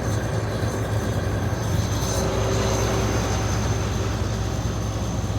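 John Deere 9670 combine running steadily while harvesting: a constant low engine drone with a thin steady high whine over it.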